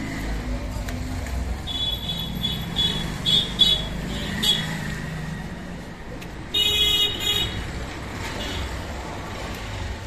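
Vehicle horns tooting over a steady low rumble of passing traffic: several short toots in the first half and a louder one held for about a second near the middle.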